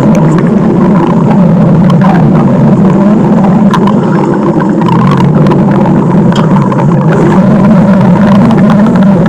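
Loud, continuous stomach growling: a steady low rumble with small clicks through it and no pauses.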